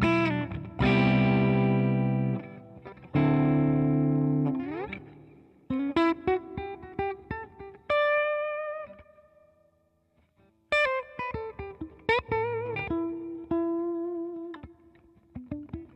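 Electric guitar played through a Digitech RP55 multi-effects pedal: two ringing strummed chords, then single-note lead phrases with held notes wavering in vibrato. There is a brief pause near the middle before the lead lines resume.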